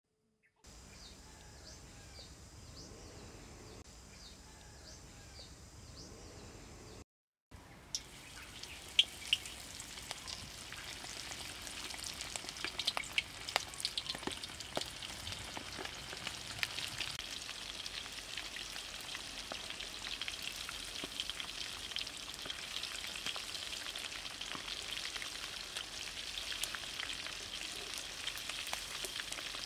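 Breadcrumb-coated frog pieces deep-frying in hot oil in a wok: a steady sizzle thick with crackles and pops, growing louder after the first few seconds of frying. Before the frying starts there is a quiet stretch with a row of short, high chirps, then a brief break.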